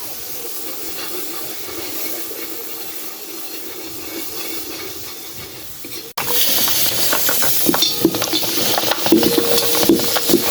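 Food sizzling in a cooking pot. After a sudden cut about six seconds in, louder sizzling comes with a spoon scraping and knocking against the pot as it is stirred.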